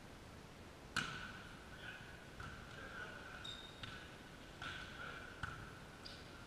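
A volleyball being struck several times during a rally, with sharp hits that echo around a large sports hall, the loudest about a second in and others near four and five and a half seconds. Short squeaks of trainers on the court floor come between the hits.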